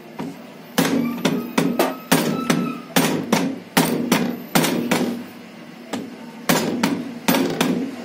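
Rubber mallet striking a Chrysler Journey alternator held in a vise, a run of sharp blows about two a second with a short pause about five seconds in, driving the rotor out of the alternator's housing.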